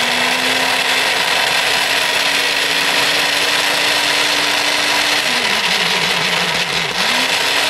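Small electric mini chopper running steadily with a steady whine, its blade grinding olive oil, lemon juice, garlic and fresh oregano into a pulp. About five seconds in, its pitch drops and wavers for a couple of seconds, then climbs back up just before the motor stops abruptly.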